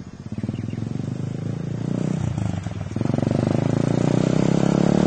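Engine of a small dirt bike running as it is ridden, pulsing at low speed and then getting louder and steadier a little over halfway through.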